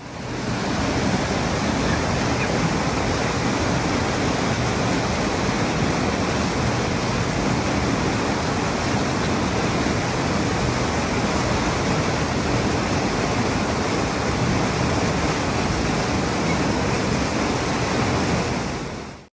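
Steady, loud rush of water pouring out of a land-drainage pumping station's outfall, an unbroken roar with no rise and fall.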